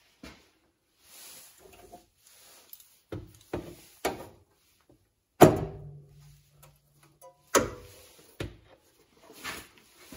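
Knocks and clunks a second or so apart from metal bars and panels being handled and fitted into a car's floor and firewall. The loudest knock, about halfway through, is followed by a low hum lasting about two seconds.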